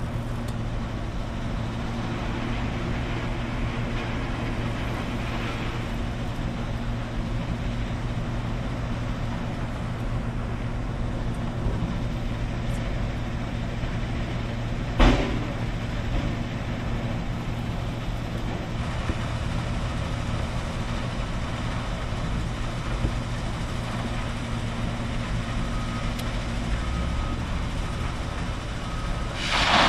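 Heavy construction machinery at the barge site running with a steady low drone, a noise the angler likens to cement being poured into a big barrel. A single sharp knock comes about halfway through, and a louder rushing noise rises at the very end.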